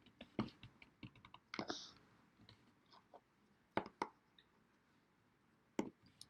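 Plastic Play-Doh stamp and toy tools clicking and knocking as the stamp is pressed down into the dough: a handful of separate sharp, faint taps with pauses between.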